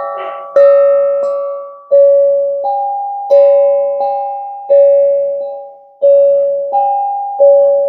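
A bell-like chime striking two notes in alternation, high then low, about one strike every 0.7 s, each note ringing and fading before the next.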